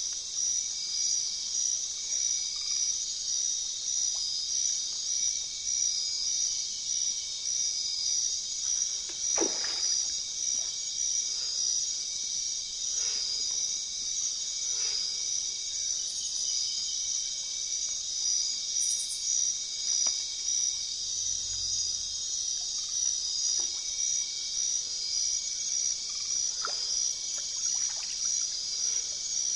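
Steady high-pitched insect chorus, pulsing fast, with a few brief chirps scattered through it, the clearest about a third of the way in.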